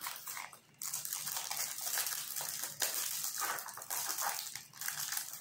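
Plastic wrapping and a rolled diamond-painting canvas crinkling and crackling as they are handled and unrolled, starting just under a second in.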